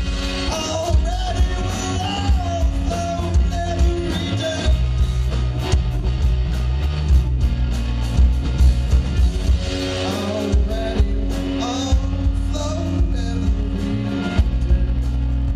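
Live rock band playing: electric bass, drum kit and electric guitar, with a steady beat.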